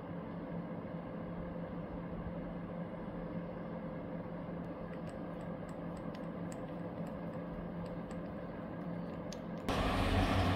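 Faint clicks and taps of a wooden stick against a small glass jar of acrylic paint as it is stirred, over a steady low hum. Near the end a louder, rougher hum takes over.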